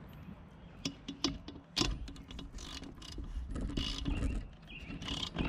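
A new spark plug being tightened into a two-stroke edger engine's cylinder head with a wrench: irregular metallic clicks and scrapes of the tool working, several times over.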